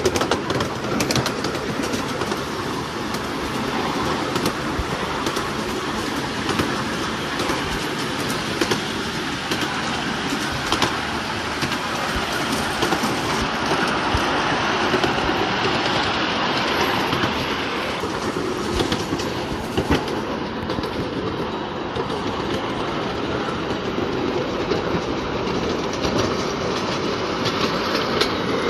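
Large-scale ride-on model train running along its track, with a steady clatter of wheels over the rail joints.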